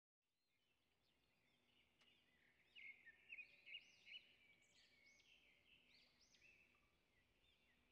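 Faint birdsong: quick repeated chirps and arching whistled notes, starting about two and a half seconds in, over a faint steady hum.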